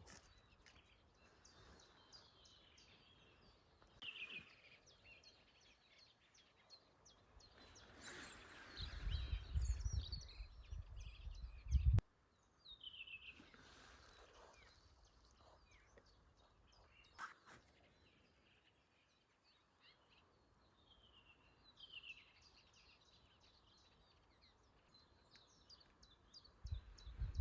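Several birds singing and calling: short downward-sliding whistles and quick runs of high chirps, over a faint outdoor hiss. A low rumble, the loudest sound, swells about a third of the way in and cuts off sharply, and comes back at the very end.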